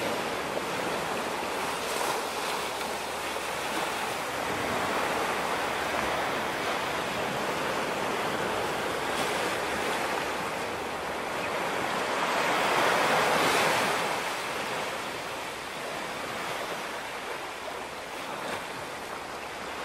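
Small waves washing up onto a sandy beach and drawing back, a steady surf hiss. One louder wash swells up about two-thirds of the way through.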